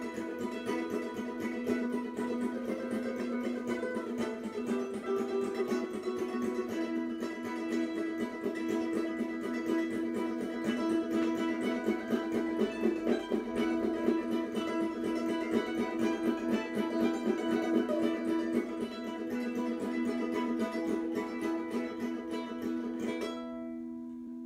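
Instrumental music on a plucked string instrument played with fast repeated strokes over steady held low notes. Near the end the strokes stop and the last notes ring on and fade.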